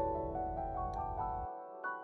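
Soft background piano music, single notes following one another over sustained lower notes.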